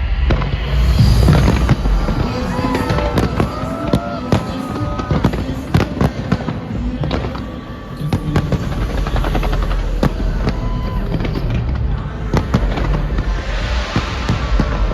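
Fireworks going off in quick, irregular bangs and crackles, over loud soundtrack music for the display.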